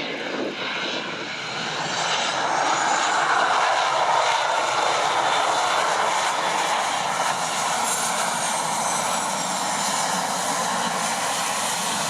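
Cessna Citation 560 XL business jet's twin turbofan engines, a loud rush and whine that swells about two seconds in. High whine tones fall in pitch from about eight seconds as the jet goes past.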